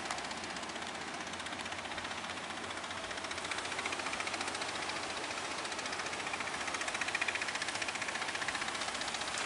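Fishing boat engine running with a rapid, steady knocking beat over the wash of breaking surf, growing a little louder from about three and a half seconds in.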